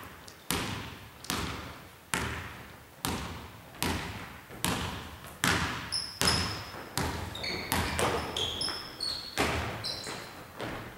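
Basketball dribbled on a hardwood gym floor, each bounce echoing in the hall, about once a second at first and quicker in the second half. Short high squeaks of sneakers on the floor come in the second half.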